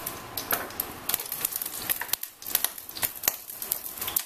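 A thin layer of cooking oil heating in a stainless steel frying pan, crackling and popping irregularly with short sharp spits over a light sizzle.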